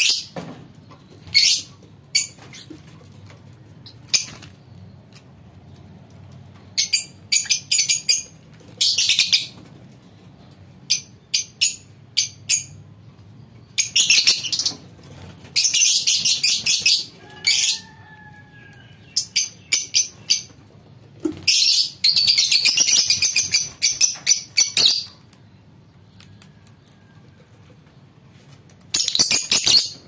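Fischer's lovebirds giving shrill, high-pitched chattering calls in bursts: short volleys, then longer stretches of continuous chatter a couple of seconds long, with quieter pauses between.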